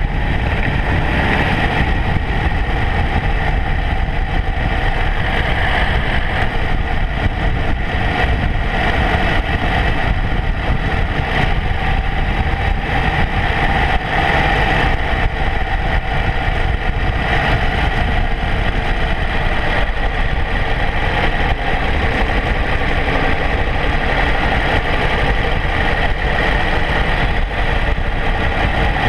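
Motorcycle riding at a steady cruising speed: the engine runs evenly under a heavy rumble of wind and road noise on the mounted camera's microphone.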